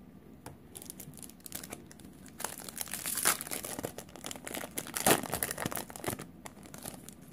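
Foil wrapper of a Magic: The Gathering booster pack crinkling and being torn open, with the loudest rips about three and five seconds in.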